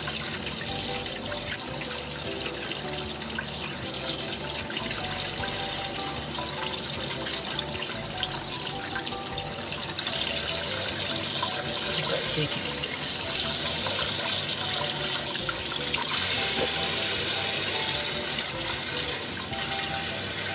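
Kitchen tap running in a steady stream into a sink, with a fish being rinsed by hand under the flow.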